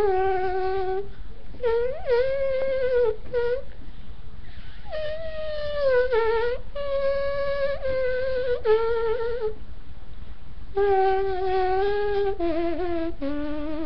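A person imitating a trumpet with his mouth, playing a slow tune in long held notes with a brassy, buzzy tone. The tune comes in four phrases with short breaks between them, some notes sliding up into pitch at their start.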